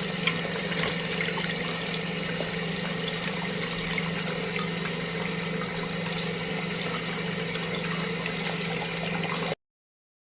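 Steady rush of running water with a constant low hum under it, which cuts off suddenly near the end.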